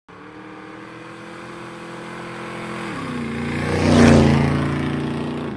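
Motorcycle engine pass-by sound effect: the engine note builds, drops in pitch about three seconds in as it goes by, is loudest about a second later, then fades away.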